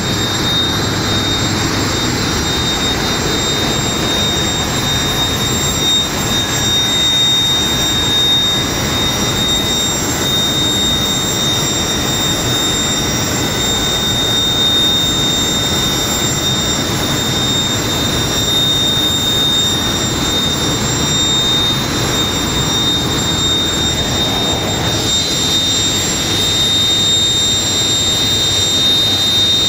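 Solar Mars 100 industrial gas turbine, a 10 MW unit, running steadily at speed: a loud, even rush with a steady high-pitched whine over it.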